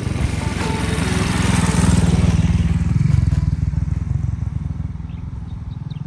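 Motorcycle tricycle with a sidecar driving past: a low, rapidly pulsing engine rumble that grows louder, peaks about two to three seconds in, then fades as it moves away.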